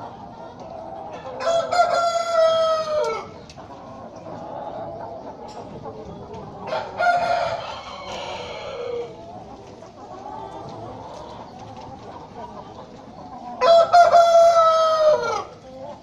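Broiler breeder roosters crowing three times, each crow about two seconds long and ending in a falling note, over the steady clucking of a flock of broiler parent-stock chickens.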